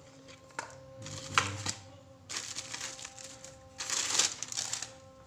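Plastic packaging crinkling and rustling under the hands: a clear plastic tray and a thin plastic bag, in three bursts of about a second each.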